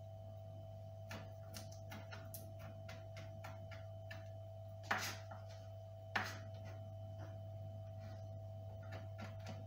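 Kitchen knife chopping parsley on a plastic cutting board: irregular taps of the blade on the board, a few a second, with two louder knocks about five and six seconds in, over a steady hum.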